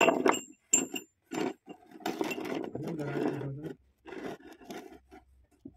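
Steel rebar being handled on a wooden workbench: a few sharp metallic clinks with a brief high ring in the first second, then scraping and rubbing of the bar against the wood, with a few lighter knocks near the end.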